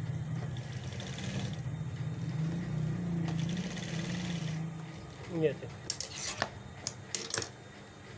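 Industrial sewing machine running steadily as it stitches fabric, then stopping after about four and a half seconds. A few sharp clicks and fabric rustling follow as the piece is pulled out from under the presser foot.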